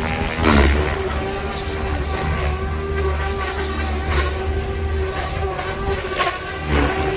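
Electric 700-class RC helicopter, a SAB Goblin Black Thunder T with a Scorpion brushless motor, in flight: a steady high whine from the motor and drivetrain over the rotor's whoosh and a low rumble. About half a second in there is a brief falling sweep in pitch.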